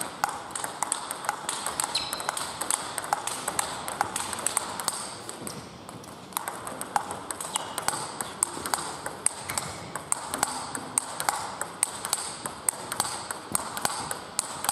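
Celluloid-type table tennis ball clicking off rubber paddles and bouncing on the table in a fast practice rally, several sharp pocks a second, easing briefly about six seconds in before picking up again.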